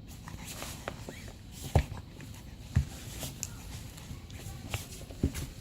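Soft rustling with a few sharp thumps, the loudest about two seconds in, about a second later, and near the end.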